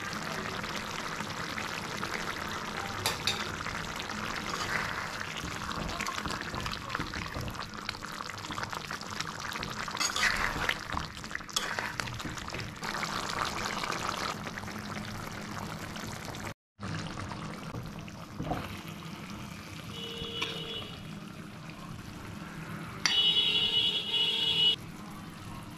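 Thick curry of pointed gourd and boiled eggs bubbling and sizzling in a metal karahi, a steady hiss stirred now and then with a metal spatula. After a short break the sound turns quieter, with two brief bursts of high ringing tone near the end, the second the loudest.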